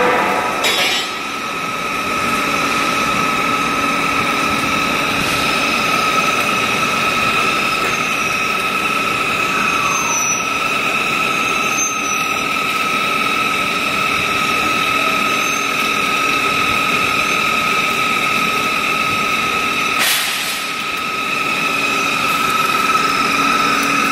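Bar-to-bar peeling machine running, with a steady whine and a lower hum as a steel bar feeds through its rollers. Brief rushes of noise come about a second in and again near the end.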